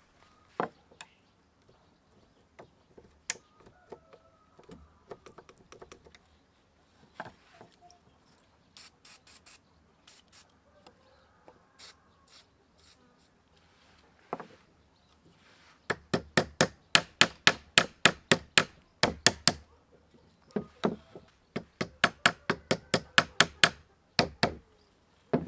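A hammer striking a steel punch against the seized, rusty gear shaft of an old hand drill, to drive out the rust-stuck part. It comes as a fast run of sharp metallic taps, about five a second, starting a little past halfway, with a short break, then a second run. Before that there are only scattered light clicks from handling the parts.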